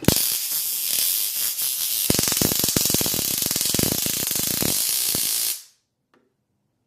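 Handheld stun gun discharging against a phone's casing: a loud electric crackle and hiss of rapid sparking for about five and a half seconds, then cut off suddenly.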